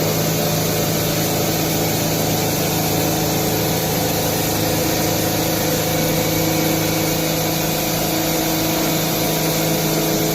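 CNC machine running steadily, a constant hum of several tones over a hiss.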